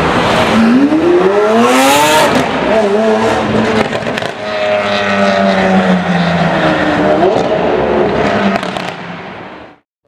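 Lamborghini Aventador V12 accelerating hard and revving: the pitch climbs steeply over the first two seconds, drops at a shift, and pulls again. A steadier engine note follows, then the sound fades out near the end.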